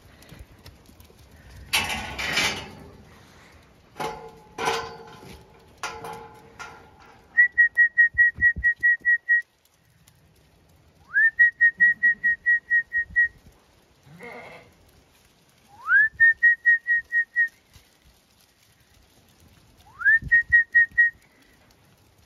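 Zwartbles sheep bleat a few times. Then come four loud bursts of trilled whistling, each a fast run of pulses on one high note, and the last three open with a quick rising swoop. These are a shepherd's whistle commands to a working sheepdog.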